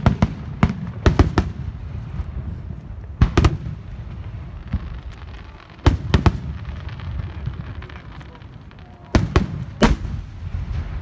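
Fireworks going off: sharp bangs in irregular clusters, a few about a second in, a pair at three and a half seconds, more around six seconds and a loud pair near the end, over a continuous low rumble.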